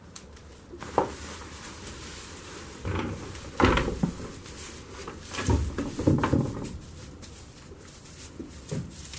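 Goat kids moving in a wooden pen: several irregular knocks and thumps against the wooden boards, the loudest a little past halfway, with rustling straw between them.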